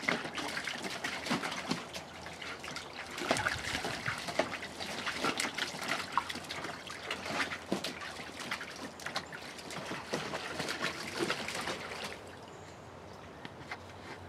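A dog splashing about in water in a plastic kiddie pool: irregular splashes and sloshing as it paws and steps in the water. The splashing dies down about twelve seconds in.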